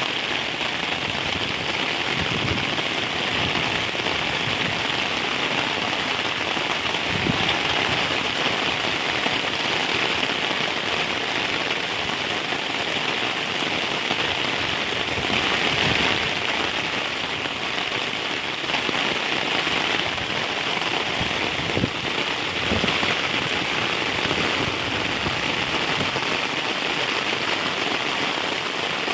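Heavy rain falling steadily, a dense even hiss, with a few soft low knocks now and then.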